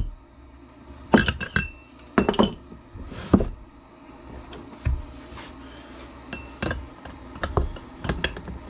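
Steel tools clinking and knocking against the metal differential case as a holding tool and a long pipe for leverage are fitted onto the pinion coupler, about ten separate sharp clinks, a few ringing briefly.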